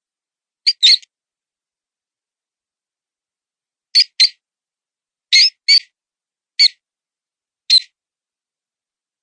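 Mouse distress squeaks played as a predator call, imitating a wounded mouse to lure foxes and other predators. They are short, high-pitched squeaks in pairs and singles with silent gaps between them: three pairs, then two single squeaks near the end.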